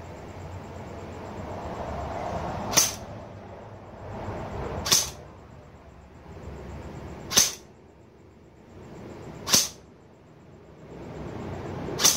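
APS ASR121 electric-blowback airsoft rifle fired five single shots, about two to two and a half seconds apart, each a short sharp crack, as it is shot through a chronograph to measure its FPS.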